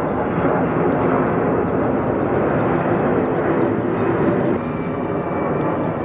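Loud, steady aircraft engine noise with a low drone.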